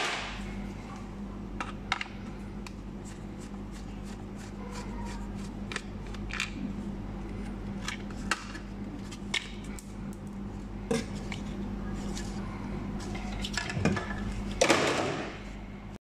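Plastic clicks and scrapes of a Škoda Octavia power window switch module being handled and pressed into its plastic trim bezel, a dozen or so sharp ticks spread irregularly, with a louder scraping rustle near the end. A steady low hum runs underneath.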